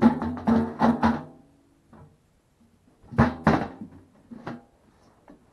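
A plucked string instrument strummed in short bursts: several chords near the start, then a couple more about three seconds in, each ringing briefly.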